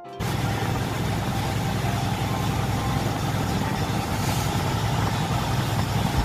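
Boat engine running steadily while underway at sea, a constant low rumble with the wash of water and wind over it.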